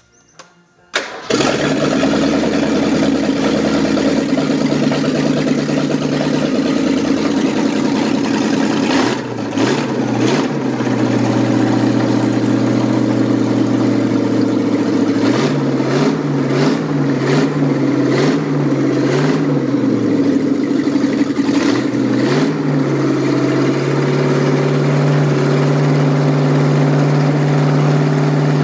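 1965 Ford Mustang engine cranking briefly and starting about a second in, then running steadily, with a run of short repeated revs in the middle and a settled, slightly higher idle near the end.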